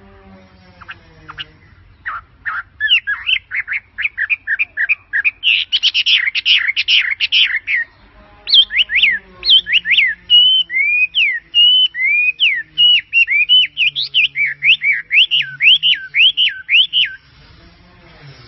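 A bird calling. From about two seconds in there is a fast run of short chirps. After a brief pause comes a long series of notes that swoop up and down in pitch, several a second, which stops shortly before the end.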